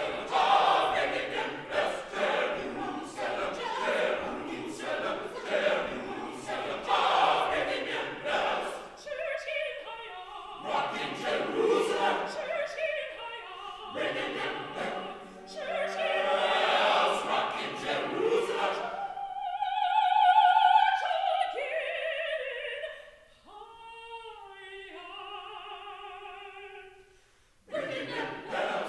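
Gospel choir singing a spiritual with regular hand claps through the first third. About twenty seconds in, a single voice carries on alone with sliding, bending pitches; after a brief drop, the full choir comes back in just before the end.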